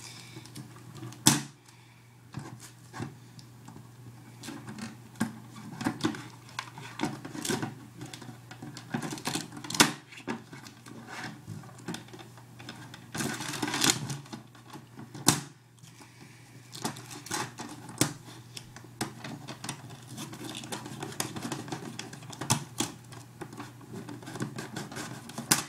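Duct tape and a cutter being handled and worked at close range: irregular clicks and crackles, with a few sharp louder clicks, over a faint steady low hum.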